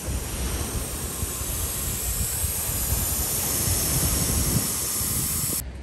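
Air hissing steadily out of a 4x4 truck's tyre valve as the tyre is deflated for driving on soft sand. The hiss cuts off abruptly near the end.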